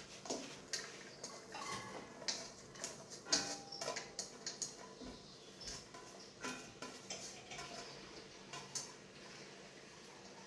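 A utensil clinking, knocking and scraping against a cooking pot in irregular strokes, a few ringing briefly, as onions are added to hot oil and stirred.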